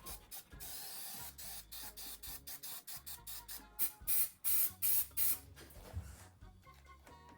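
Aerosol spray adhesive hissing from the can, first in a longer spray about a second in, then in several short, loud bursts a few seconds later.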